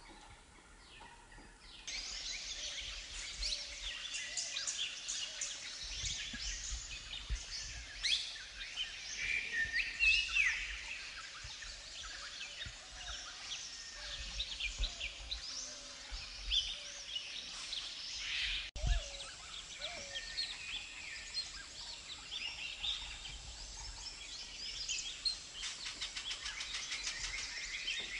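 Many small birds chirping and trilling together in a forest chorus; it comes in abruptly about two seconds in.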